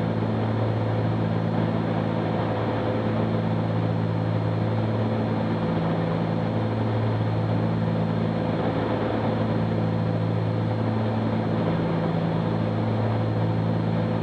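Cessna 310Q's twin piston engines and propellers droning steadily at reduced descent power, the low hum slowly swelling and fading.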